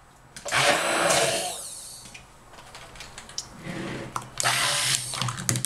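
Stick blender run in two short bursts, each about a second and a half, blending a portion of cold process soap batter.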